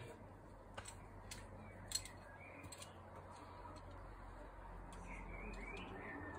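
Faint clicks and taps from a rock climber moving up the wall with their gear, a few scattered strikes, the loudest about two seconds in. A bird chirps faintly twice.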